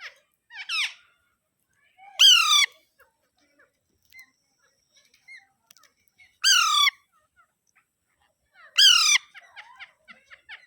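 Alexandrine parakeet giving three loud, harsh squawks about two to four seconds apart, each about half a second long, with a softer call before the first and quick soft chirps near the end.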